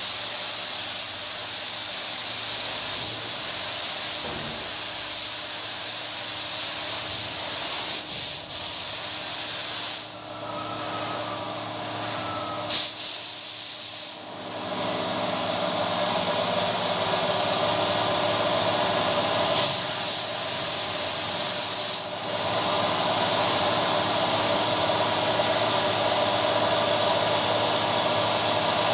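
Compressed-air spray gun hissing steadily while spraying a lacquer top coat onto a wooden door. The hiss cuts out for about four seconds near the middle, with one sharp click in the gap, then starts again. A lower rushing noise carries on through the last few seconds.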